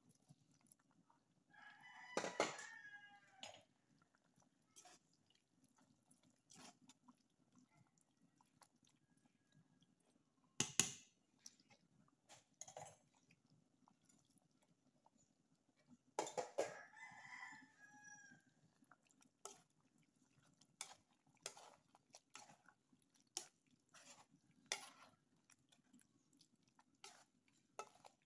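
A rooster crowing twice, each crow about two seconds long, the first about a second and a half in and the second about halfway through. Scattered sharp clicks and a faint steady low hum sit underneath.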